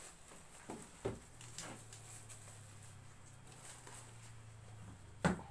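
Scattered light taps and clicks of small objects being handled on a table, with one sharper knock about five seconds in, over a faint steady low hum.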